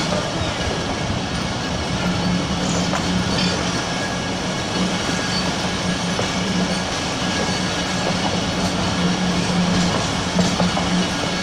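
Passenger train moving, heard from inside the carriage at the window: a steady rumble of wheels on the rails, with a low hum that comes and goes and a few faint clicks.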